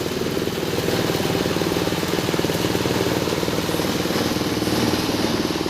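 Coconut-husk grinding machine (cocopeat shredder) running steadily, with a fast, even chugging.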